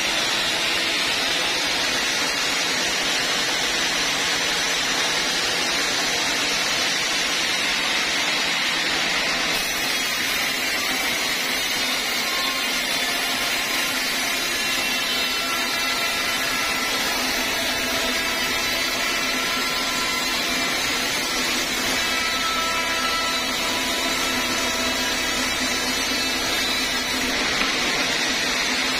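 Sawmill band saw cutting lengthwise through an old teak log, a steady, even noise.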